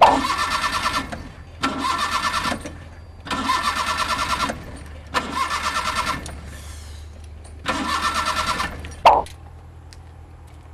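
Car engine cranked on its starter in five short bursts of about a second each, turning over with a fast pulsing beat but never catching: a car that won't start. A single sharp click follows near the end.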